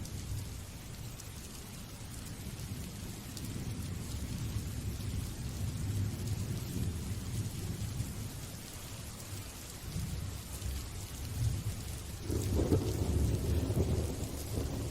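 Steady rain hissing, with thunder rumbling low underneath; the rumble swells and grows loudest about three-quarters of the way through.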